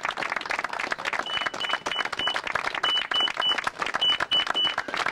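Crowd applauding, many hands clapping at once. From about a second in, short high electronic beeps sound over it in quick groups of four, three and three.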